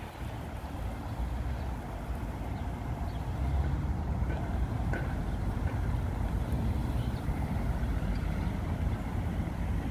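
City street traffic: cars and a city bus passing, a steady low rumble that gets louder about three and a half seconds in.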